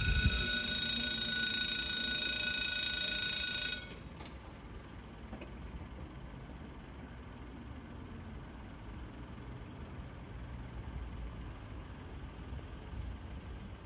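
Railway level crossing warning bell ringing steadily, then cutting off suddenly about four seconds in. A low background rumble remains.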